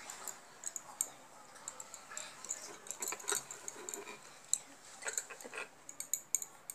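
Handling sounds of crocheting close to the microphone: a metal crochet hook and wool yarn being worked by hand, giving many light, irregular clicks and soft rustles.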